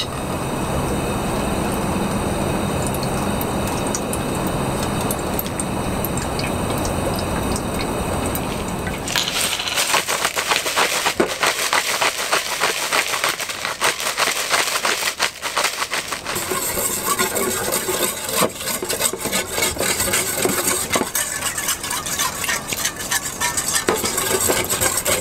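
A steady rushing noise for about the first nine seconds, then camp-cooking sounds: a utensil clicking and clinking against a pot or bowl while stirring.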